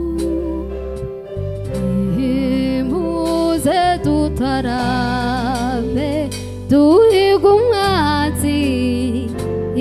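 A woman singing a slow love ballad with vibrato, backed by a live band of electric bass, keyboard and drum kit. Her voice swells loudest about seven seconds in.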